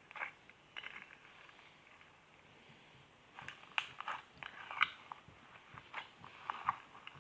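Slime being squeezed and poked by hand, giving sharp, irregular clicks and crackles: a few at first, then a dense run from about halfway in.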